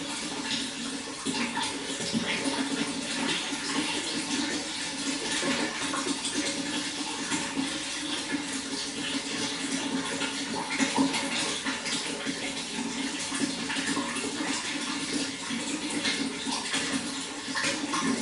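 Running water splashing and trickling steadily and continuously.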